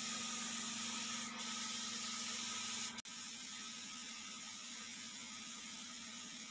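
Air spray gun with a gravity-feed cup hissing steadily as it sprays paint onto a panel. The hiss dips briefly about three seconds in and then goes on a little quieter.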